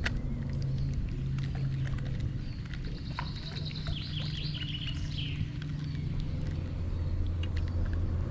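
A steady low engine drone, shifting slightly in pitch, with a bird's rapid trilling call falling in pitch in the middle. Scattered light clicks sound throughout.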